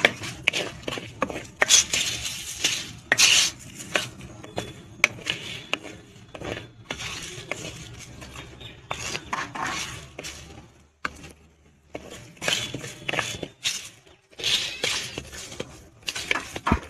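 A spatula scraping and stirring whole spices (coriander seeds, peppercorns, cumin, bay leaves and star anise) as they dry-roast in a clay pot, with irregular scrapes and the seeds rattling against the pot. There are short pauses in the stirring about eleven and fourteen seconds in.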